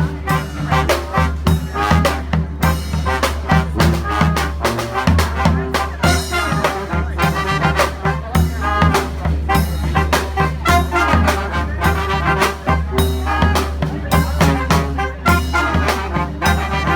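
Brass band playing live: brass horns over a steady drumbeat and low bass notes.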